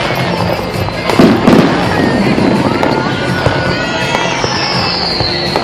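Fireworks bursting and crackling overhead, with a loud booming burst about a second in and a high falling whistle near the end. Music plays underneath.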